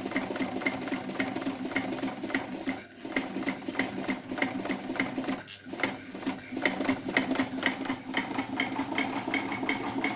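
Jones 641 vintage sewing machine sewing steadily, its needle mechanism clicking in an even, rapid rhythm over a running hum, easing off briefly twice.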